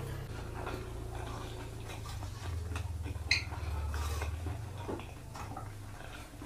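Close-miked eating sounds: chewing with the mouth full, and fingers pressing and gathering rice on a ceramic plate, with small clicks and one sharp clink a little over three seconds in.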